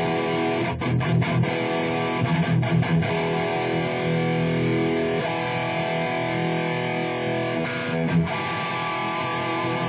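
Electric guitar, an Epiphone Les Paul Prophecy played through a Marshall 1959HW valve head and JCM900 cabinet. It plays choppy rock riffs in the first half, then held chords from about four seconds in, with a sharp accent just after eight seconds.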